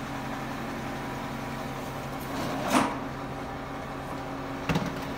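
Truck-mounted crane's diesel engine idling with a steady hum. A brief louder noise comes about two and a half seconds in, and a couple of sharp knocks near the end.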